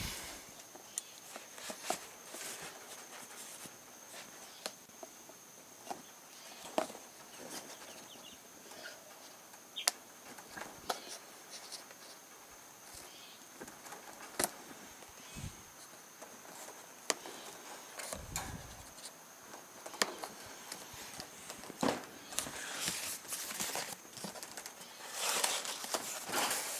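Cardboard and small plastic zip ties being fastened to a wire dog crate: scattered light clicks, taps and rattles of the wire, with a longer spell of cardboard rustling near the end. A faint steady high-pitched tone sits underneath.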